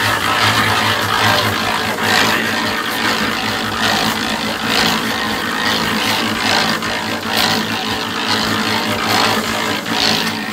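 Concrete mixer running, its drum turning with a steady low hum while the wet concrete mix of cement, sand, stone and water churns inside, giving a rush of noise every second or so.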